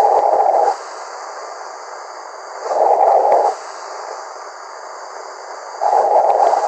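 A man snoring, heard over a voice-chat room connection: three rasping snores about three seconds apart, each lasting under a second, over a steady hiss.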